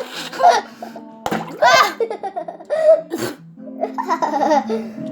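Young voices laughing in several bursts over background music.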